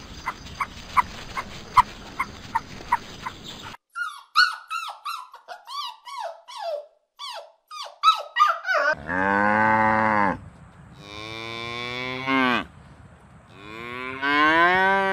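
A cow mooing: three long, loud moos beginning about nine seconds in. Before them comes a run of short, quick falling chirps, and at the very start a steady ticking of about two to three clicks a second.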